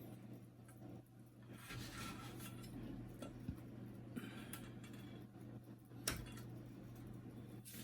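Faint clicks, small clinks and soft scrapes of hand tools and small screws and parts being handled during printer disassembly, the sharpest click about six seconds in, over a low steady hum.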